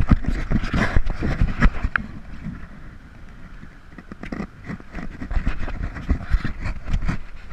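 Shallow sea water sloshing and splashing around a camera held at the water's surface, with wind on the microphone. The splashing comes in two busy spells, in the first two seconds and again from about four to seven seconds in, quieter between.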